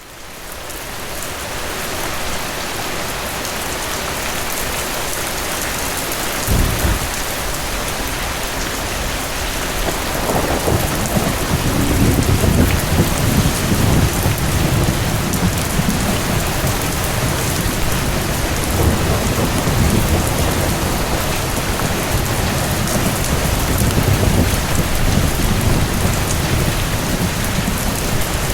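Steady heavy rain with thunder: the rain fades in at the start, a sharp low thunderclap comes about six seconds in, and low rumbles swell and fade several times after.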